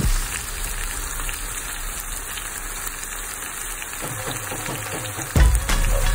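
Steady sizzling of drumsticks, tomato and onion frying in oil in a pan. Background music with a heavy beat comes back near the end.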